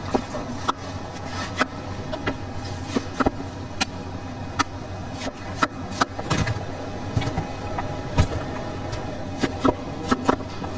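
A kitchen knife knocking on a wooden cutting board at irregular intervals as it slices through watermelon, with sharp clicks and taps over a steady low hum.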